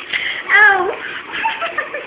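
A young person's voice making a short, high-pitched, wavering vocal sound with a falling pitch about half a second in, followed by a few brief voice sounds without clear words.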